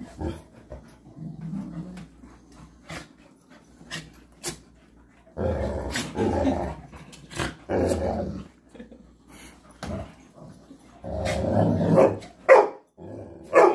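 Dogs play-fighting: rough growling in several bursts, with a couple of short high yips or barks near the end.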